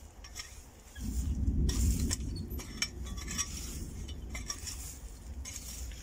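Garden fork digging into soil and turning it over, its steel tines scraping and clicking against clods and grit. A low rumble sets in about a second in and stays under the scrapes.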